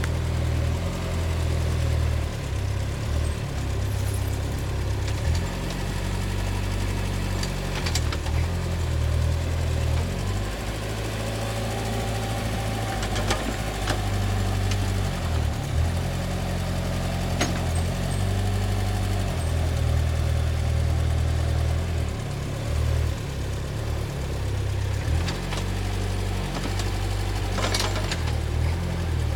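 Small homemade tractor's engine running while it powers a homemade backhoe digging sand, its low note shifting every few seconds as the arm works. A few sharp knocks are scattered through it.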